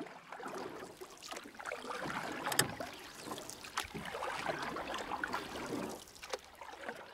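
Water splashing and lapping, uneven, with scattered small clicks and one sharper splash or knock about two and a half seconds in.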